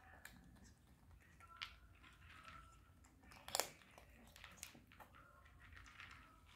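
Near silence broken by a few sharp clicks and crunches, the loudest about three and a half seconds in: a street cat crunching dry food.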